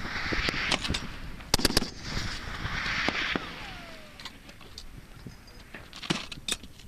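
Several gunshots with a rolling echo after them, the loudest a quick pair about one and a half seconds in, then fainter scattered shots. A short falling whine about three seconds in.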